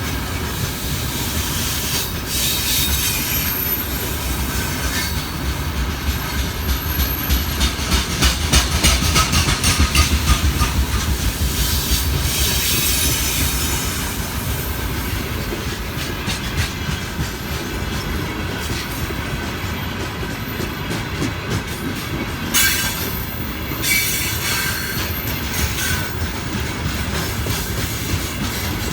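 Freight train of gondola cars rolling past, the wheels clicking over rail joints with a steady rumble and occasional high wheel squeal, loudest about a third of the way in.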